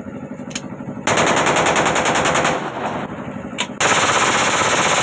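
Zigana Sport 9mm pistol firing on full auto, two long rapid bursts from its extended magazine: the first starts about a second in and lasts about a second and a half, the second starts near four seconds.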